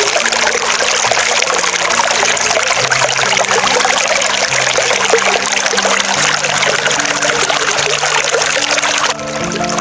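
Steady rush of running water over soft background music with held notes; the water cuts off about nine seconds in.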